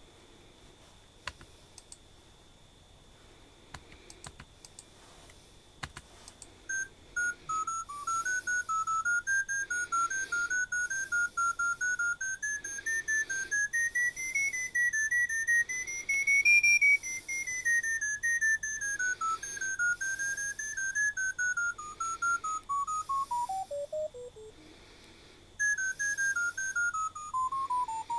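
A freetel Priori smartphone's speaker plays a run of short electronic beeps from an RFO BASIC random-walk program. Each beep's pitch is set by the dot's height, so the pitch wanders up and down in small random steps. After a few faint clicks the beeps start a quarter of the way in, slide down to a low pitch, stop for about a second, and start again higher.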